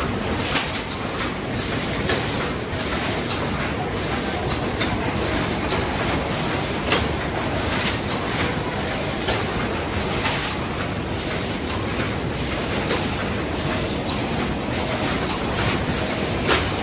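Ice cream cone filling machine running: a steady mechanical din with many short, sharp clacks scattered through it.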